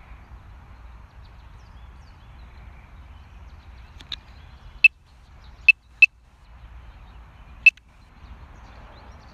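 Sharp, loud clicks over a low, steady background noise: a faint one about four seconds in, then four more over the next three seconds, two of them close together.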